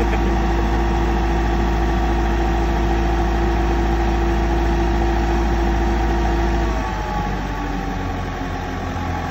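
Sellick S120 rough-terrain forklift running with a steady whine while its mast and forks are worked hydraulically. About seven seconds in the whine stops and the engine drops to a lower, slightly quieter idle.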